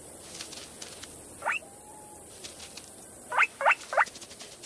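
Four short, high squeaks, each rising quickly in pitch: one about a second and a half in, then three in quick succession near the end, over faint rustling and ticking.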